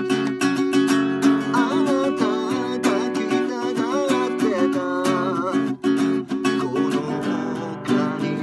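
Nylon-string classical guitar strummed in a steady rhythm, with a man singing over it from about a second and a half in until about five and a half seconds, and again briefly near the end.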